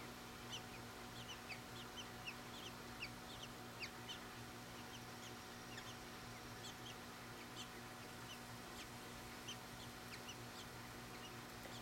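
Small birds chirping: short, high, falling chirps several times a second, thinning out after about four seconds.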